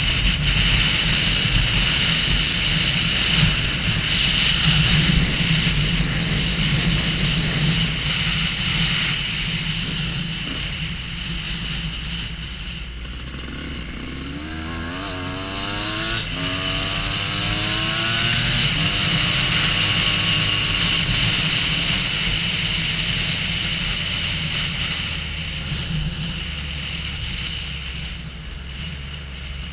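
Off-road motorcycle engine running under way, with wind noise throughout. About halfway through, the engine pitch climbs in several rising sweeps as it revs up, then it settles back to a steadier drone.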